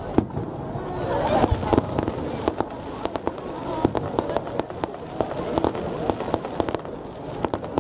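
Fireworks going off: a rapid, irregular string of sharp crackling pops and bangs, several a second, with voices of onlookers murmuring underneath.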